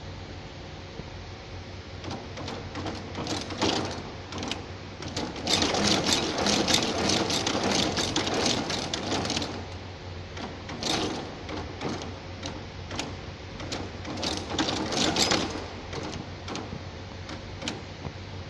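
Tea bag packing machine's cam-and-lever mechanism clattering with fast, dense clicking that comes in stretches of a few seconds, loudest about six to nine seconds in, over a steady machine hum.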